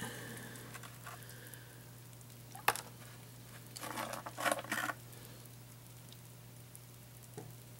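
Faint swishing of water and wet gravel in a plastic gold pan as fingers rake through the material, with a single sharp click about two and a half seconds in and a short louder splash of water about four seconds in.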